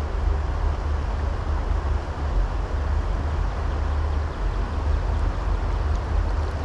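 Steady rush of a high, swollen stream, with wind rumbling and buffeting on the microphone.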